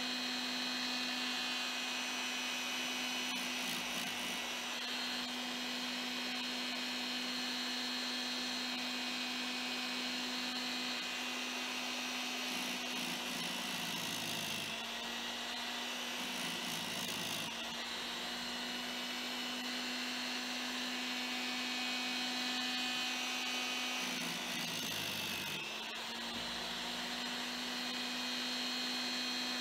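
Inexpensive electric chainsaw sharpener's small motor running steadily with its grinding wheel spinning. Three times the wheel is brought down onto a chain tooth and grinds it, and the motor's note drops under the load.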